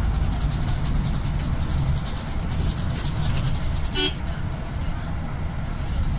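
Steady engine and road rumble of a car driving, heard from inside the vehicle, with one short car-horn toot about four seconds in.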